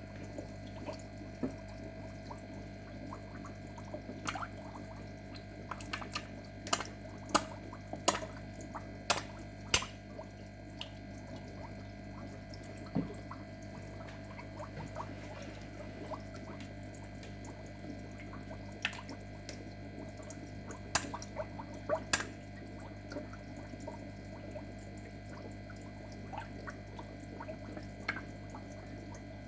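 Short, sharp water splashes and drips as parrotfish snap at flakes held at the water's surface, a run of them between about four and ten seconds in and a few more around twenty seconds. A steady low hum runs underneath.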